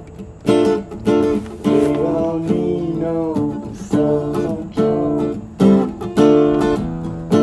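Acoustic guitar strummed in short rhythmic chord hits, with a few sliding, bending notes woven in between about two and three and a half seconds in.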